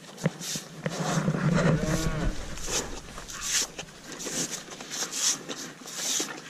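Cattle, one cow mooing briefly about two seconds in, amid repeated rustling and knocking from the herd crowding together.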